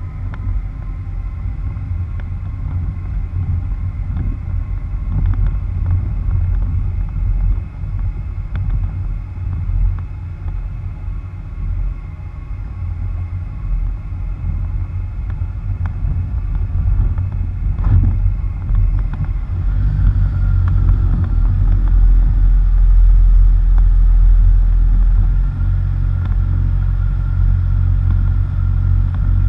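Low rumble of tyres rolling over a rough, potholed dirt road, with wind buffeting, heard from a bumper-mounted camera on a very quiet vehicle. A few light clicks of gravel and one sharper knock past the middle; the rumble grows louder about two-thirds of the way through.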